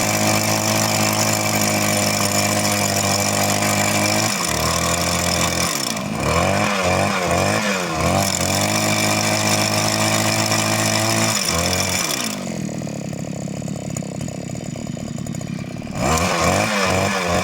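Two-stroke petrol rock drill engine running hard, its pitch dipping and surging several times with the throttle. About twelve seconds in it drops to a quieter idle for a few seconds, then revs up again near the end.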